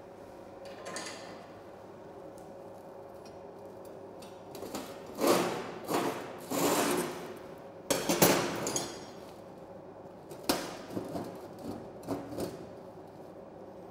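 Tack-welded steel angle frame shifted and knocked against a steel welding bench while it is squared up before the final weld. A few metallic scrapes and clanks start about five seconds in, with a sharp clank near eight seconds, another a little later, then several lighter knocks.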